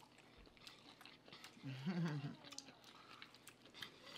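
Close-miked chewing of a mouthful of meatloaf, with small wet mouth clicks. A short hummed "mm" of enjoyment comes about two seconds in.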